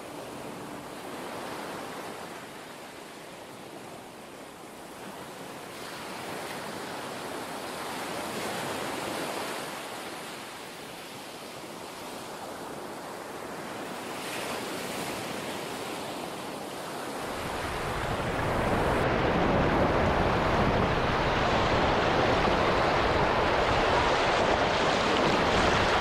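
Surf breaking on a sandy beach in strong wind, swelling and easing. About two-thirds of the way through it grows much louder and deeper as close waves wash in and wind buffets the microphone.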